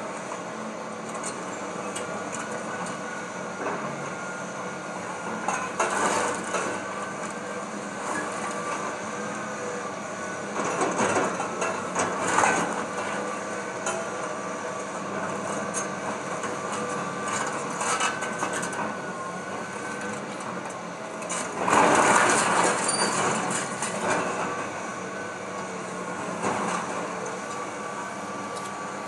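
An excavator's engine runs steadily as its bucket tears into a wood-frame house, with several bursts of crashing and splintering wood and falling debris. The loudest crash comes about two-thirds of the way through.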